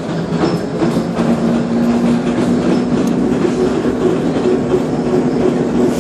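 Moving trolleybus heard from inside the cabin: steady rattling and road noise with a low humming tone that steps up a little about a second in.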